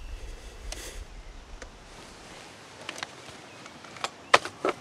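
A low rumble fades out about halfway through. A few sharp clicks follow, the loudest one near the end.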